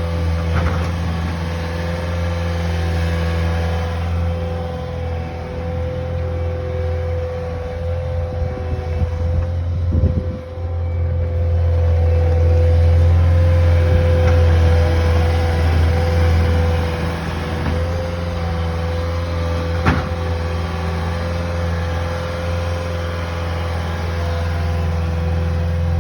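Engine of a snow-moving machine running steadily under load, a deep drone with a steady whine above it, and a couple of sharp knocks about ten and twenty seconds in.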